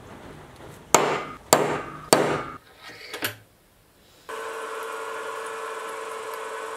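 Three sharp hammer blows on a centre punch about half a second apart, marking hole positions in an aluminium block. A little over four seconds in, the Sieg X2.7L mini mill's motor starts and runs steadily with a whine as its drill bit bores into the aluminium.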